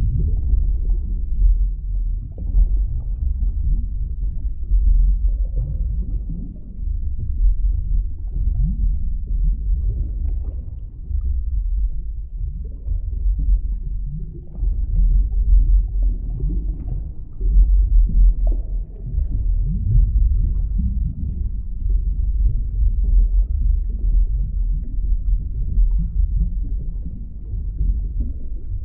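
Underwater ambience: a deep, steady low rumble with many soft, short gurgles rising through it, swelling and easing every few seconds.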